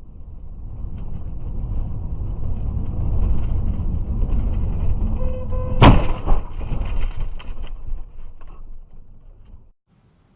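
Vehicle crash as heard from a dashcam: steady road and engine rumble that grows louder, then one loud sharp impact about six seconds in, followed by a couple of seconds of rattling and clatter.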